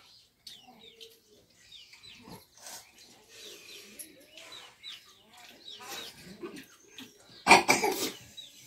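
Eating by hand from steel plates, with soft clicks and rustles, against many short, high bird chirps. A loud burst of clatter about seven and a half seconds in, as a steel tumbler is picked up.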